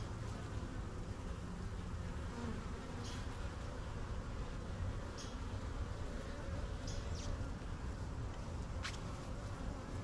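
Honeybee colony buzzing from an opened Langstroth hive, a steady even hum of many bees, with a few faint clicks scattered through.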